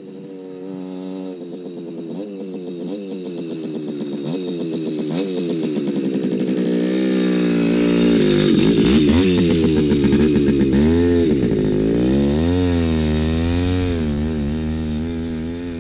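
Simson S51 Enduro's tuned two-stroke 50 cc engine (ZT Stage 2, AOA 2 expansion exhaust) ridden toward the camera. Its revs climb and drop in steps as it shifts, growing louder to a peak about nine seconds in. After that the pitch swings repeatedly up and down as the throttle is blipped.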